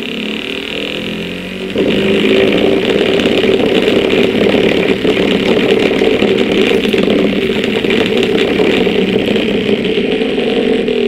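Home-made 12-volt DC motor running: a wound armature spinning on a bolt and ball bearing, with hand-held wire brushes rubbing on the commutator and giving a rapid rattle over the whirr. It gets louder about two seconds in.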